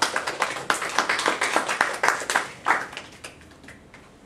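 Hands clapping in a short round of applause, many quick claps that thin out and stop about three seconds in.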